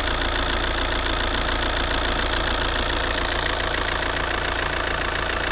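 Opel Astra H 1.9 CDTI 150 hp four-cylinder diesel engine idling steadily. The owner hears a metallic sound in it and is unsure whether it is a fault or normal.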